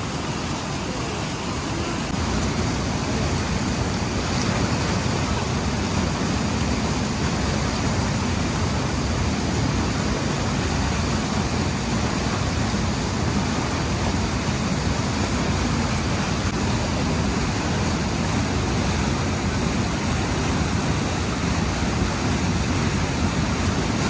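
Rushing water of a waterfall: a steady, even noise that grows slightly louder about two seconds in and then holds.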